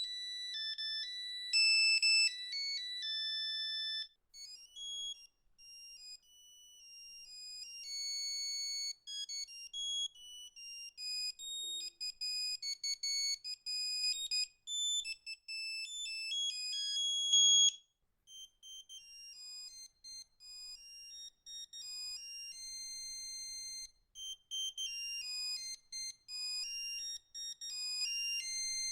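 Nokia 3210 monophonic ringtones playing one after another. Each is a melody of high-pitched beeping notes sounded one at a time, and the tune breaks off and a new one starts about 4 seconds in and again about 18 seconds in.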